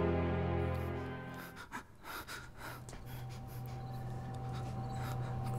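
Dark, sustained film-score drone that fades out about a second and a half in, leaving a quieter steady low hum with a thin high tone and scattered faint rustles.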